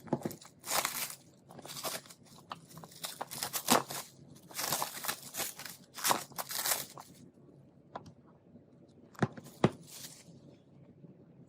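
Packaging being handled during an unboxing: irregular crinkling and rustling of plastic and cardboard, then two sharp clicks about two-thirds of the way through.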